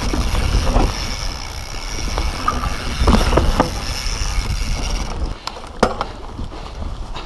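Mountain bike descending a dirt singletrack at speed: wind rumbles on the point-of-view camera's microphone over the noise of the tyres and the bike rattling. About five seconds in the wind noise drops and a few sharp knocks and clatters of the bike over the rough trail stand out.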